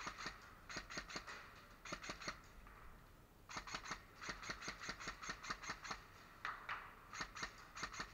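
Airsoft gunfire: strings of sharp, rapid clicking shots at roughly six a second, in several short bursts and one longer burst of over two seconds starting about three and a half seconds in.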